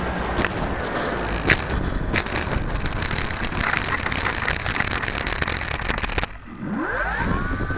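Dynam DC-3 foam RC model landing and rolling through dry grass: rattling and crackling of the airframe with wind noise, and a sharp knock about a second and a half in. The noise cuts out suddenly near the end, then an electric motor whine rises in pitch.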